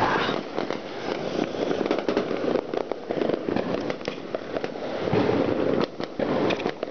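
Dense, continuous popping and crackling of many firecrackers and fireworks going off at once, a nonstop barrage of overlapping bangs. The sound briefly drops about six seconds in.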